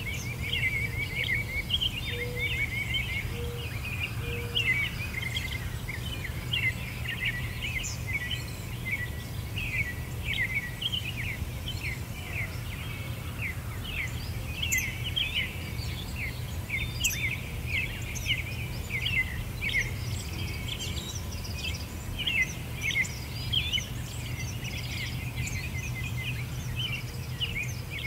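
Many small songbirds chirping and twittering continuously in a dense chorus, over a steady low hum.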